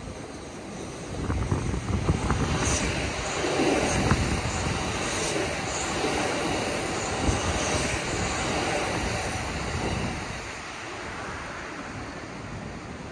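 Kintetsu 5800-series electric train running past: a rumble of wheels on rail builds about a second in, with scattered sharp clicks over the track, and eases off near the end.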